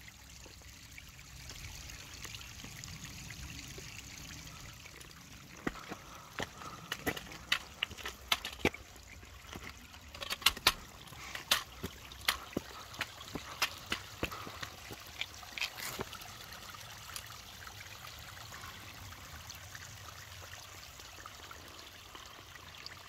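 Sharp, irregular clicks and taps of a hiker moving over a rocky mountain trail, coming for about ten seconds from some six seconds in, over a steady rushing background noise.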